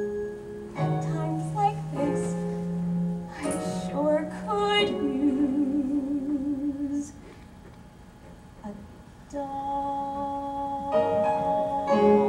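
A woman singing a musical-theatre song over instrumental accompaniment, holding long notes with vibrato. The music drops quiet for about two seconds past the middle, then comes back with sustained notes that swell near the end.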